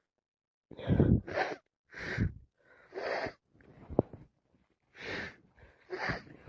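A person's short, noisy gasping breaths and sniffs, about seven of them roughly one a second, during a bout of non-stop sneezing.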